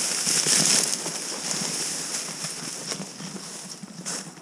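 Dry reeds and prairie grass rustling and crackling as they brush against bodies and clothing, with footsteps crunching through snow. Loudest about half a second in, then fading.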